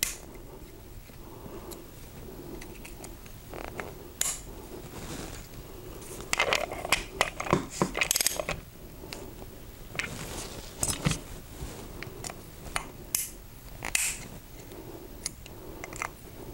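Metal hand tools clicking, clinking and scraping on a positive displacement pump: an Allen wrench working the seal-collar set screws and a ratchet on a rotor bolt turning the pump shaft. The clinks come in scattered ones and twos, with a busier run about six to eight seconds in.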